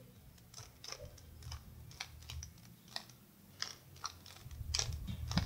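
Plastic clicks of a bandaged 3x3 Rubik's-type cube as its layers are turned by hand in a repeated move sequence: short separate clacks, roughly two a second and unevenly spaced. A low rumble builds near the end.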